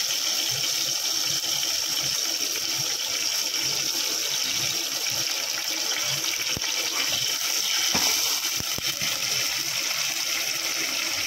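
Mustard seeds sizzling in hot coconut oil for a tempering: a steady hiss with a few sharp pops.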